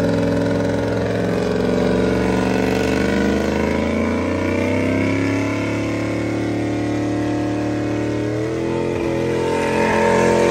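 Pickup truck's engine held at high revs through tyre smoke, its pitch sagging in the middle and climbing again over the last few seconds.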